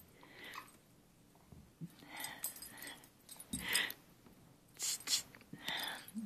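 Two dogs play-wrestling over plush toys: a series of short, soft, breathy and scuffling noises, a fraction of a second to a second apart.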